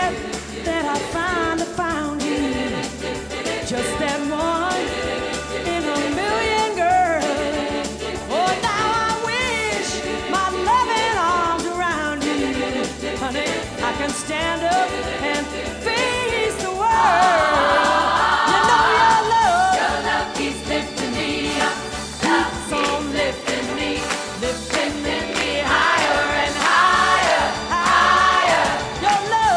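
A solo singer and a large choir singing a soul song live, over a steady beat. The voices swell louder and higher about halfway through and again near the end.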